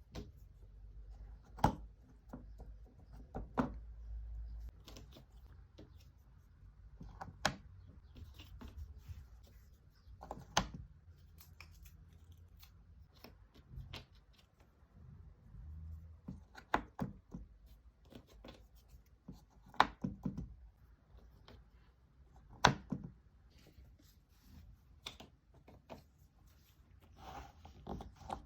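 Cardboard jigsaw puzzle pieces being handled and set down on a table: irregular light taps and clicks with soft rustling between them, two sharper clicks near the end.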